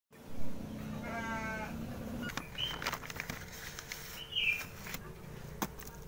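A drawn-out, bleat-like animal call in the first two seconds, followed by two short high chirps from a small bird and a few light clicks.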